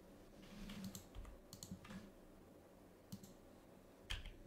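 Faint, scattered clicks of a computer mouse and keyboard being used, with a few quick keystrokes about four seconds in.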